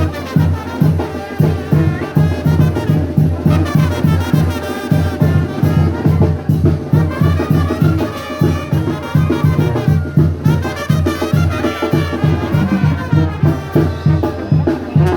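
Music with brass and drums: a melody over a steady, quick drum beat.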